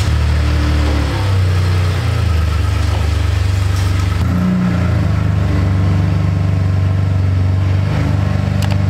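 Chevy Colorado pickup's engine running at low speed as the truck reverses, a steady low exhaust hum whose pitch shifts slightly about a second in and again around the middle.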